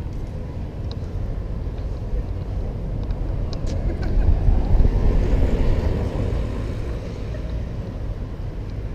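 Street traffic: a steady low rumble that swells for about two seconds near the middle, as a vehicle passes close by, then fades back.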